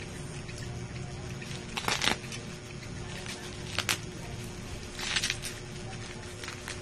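Clear plastic packaging crinkling in a few short bursts as hands handle bagged powder supplements, over a faint steady hum.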